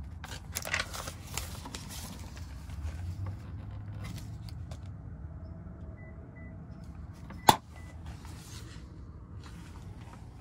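Camera handling rustle over a low steady hum. About seven and a half seconds in comes a single sharp click, with a few faint short high beeps just before and after it.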